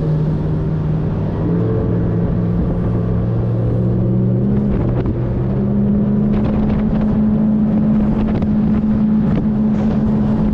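Outboard motor of a small dinghy running under way, with a steady drone whose pitch rises about four to six seconds in as the engine speeds up, then holds.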